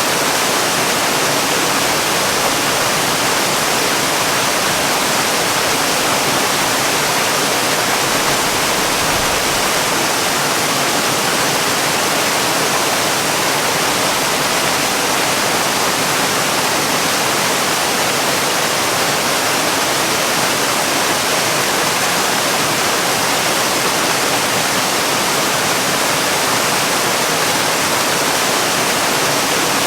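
Waterfall: a steady, unbroken rush of falling water, mostly a high hiss, with no change.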